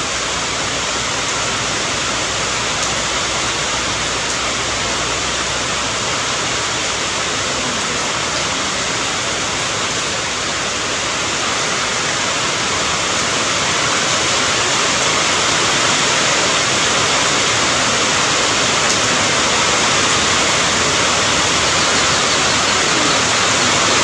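Steady rain, a dense even hiss with no single drops standing out, growing slightly louder about halfway through.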